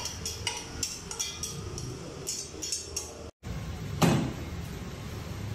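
Metal tongs and a steel pan clinking against a plate in a quick run of sharp clicks. After a brief break, one loud metal clank of a pan on the stove, then a steady low rumble.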